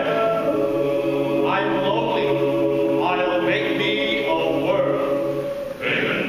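A choir singing long held chords, several voices moving together.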